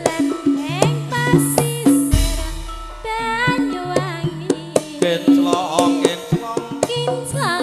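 Javanese gamelan music accompanying a tayub dance: kendang drum strokes over sustained pitched gong and metallophone tones, with a singer's voice weaving above.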